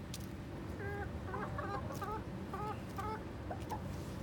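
Chicken clucking: about eight short clucks in quick succession over roughly two seconds, starting about a second in.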